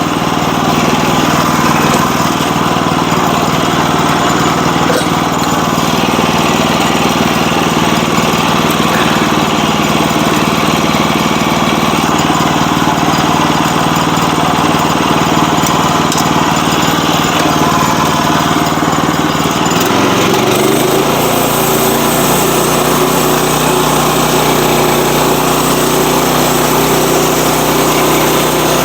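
Sawmill running under load, its engine and blade working steadily through a log. About twenty seconds in, the engine note shifts upward and then runs steady.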